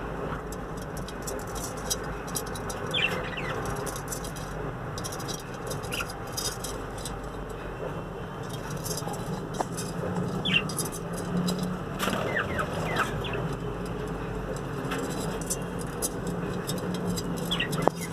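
Budgerigars giving short, scattered chirps, with a quick cluster of several chirps about twelve seconds in, over a steady low background hum.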